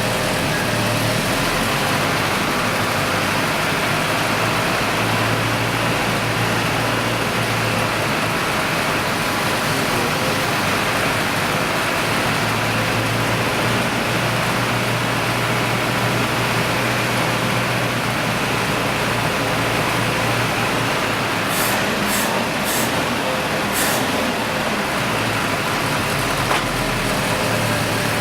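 GAZ Volga's four-cylinder engine idling steadily on LPG while the gas supply to the K151 carburettor's first chamber is adjusted. A few short, light clicks are heard a little over 20 seconds in.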